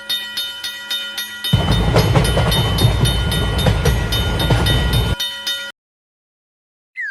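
Railroad crossing warning bell ringing in an even, rapid repeat of about three strikes a second. A train passes loudly through the middle for about four seconds. The train sound and the bell cut off abruptly, and a short falling slide sound effect follows near the end.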